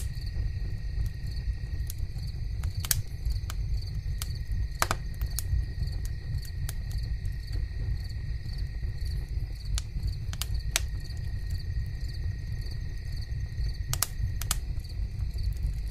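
An insect chirping faintly and evenly, about twice a second, over a steady low rumble and a steady high tone, with a few scattered clicks.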